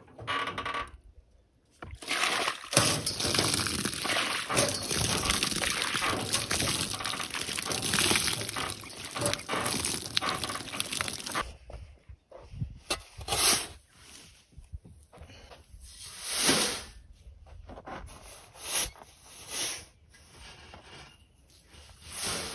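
Water poured from a plastic bucket splashing onto a granite stone wall for about ten seconds. After that come several separate shovel scoops of sand, one tipped into a wheelbarrow near the end.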